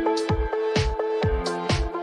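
Background electronic dance music: a steady kick drum about twice a second under held synth chords, with crisp high percussion on the beats.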